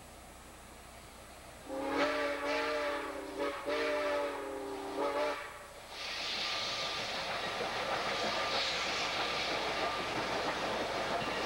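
Southern Pacific 786, a 2-8-2 Mikado steam locomotive, sounds its steam whistle in one long blast of about three and a half seconds, broken briefly near the middle. Then a steady hiss of steam and running noise from the approaching engine takes over.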